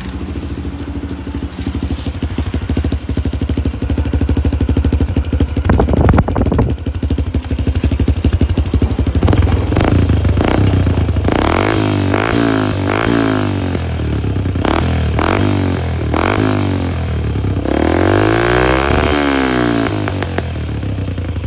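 Yamaha LC135's single-cylinder four-stroke engine running through an Apido 28mm exhaust with the dB-killer silencer fitted. It idles steadily, then the throttle is blipped in about six short revs a second apart, followed by one longer rev near the end. With the silencer in, the note is not very loud.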